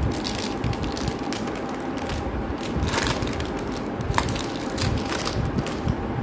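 Butter paper (baking parchment) crinkling and crackling irregularly as hands fold and pull it back from the sides of a baked brownie, over a faint steady hum.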